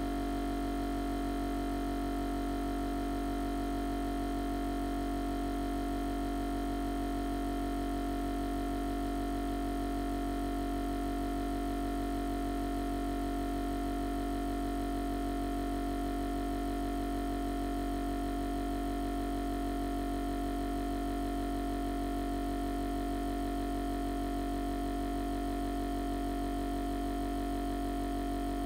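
Reber Professional 30 vacuum sealer's suction pump running with a steady, unchanging hum as it draws the air out of the bag.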